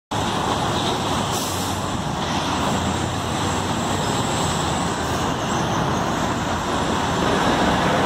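Steady road traffic noise: cars and a truck passing on a busy boulevard, an even rush of tyres and engines.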